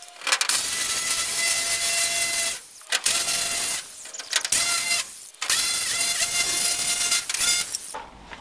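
Corded jigsaw cutting a circular hole in a translucent plastic roof sheet overhead. It runs in three spells of about two seconds each, with short pauses between, a steady motor whine over the rasp of the blade, and it stops just before the end.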